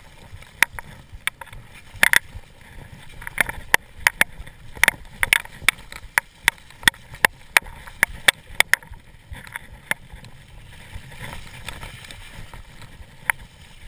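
Mountain bike rattling down a rough, muddy trail: irregular sharp clicks and knocks from the bike over a low rumble of tyres, coming thickest in the middle and thinning out near the end.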